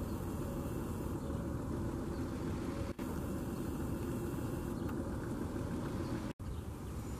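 Steady low mechanical hum with faint steady tones in it, cut off briefly twice.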